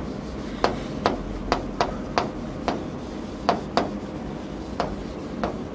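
Chalk writing on a chalkboard: about ten short, sharp taps and strokes at irregular intervals as letters are written.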